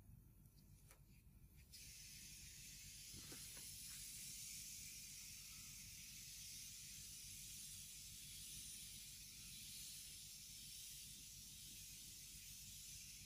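Near silence: a faint, even hiss of recording noise over a low hum, the hiss coming in abruptly about two seconds in, with a few faint ticks.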